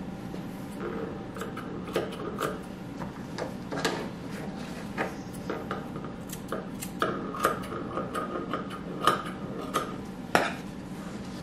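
Grooming shears snipping the dog's coat: irregular sharp metallic clicks, some with a short ring, coming more often in the second half, over a steady low hum.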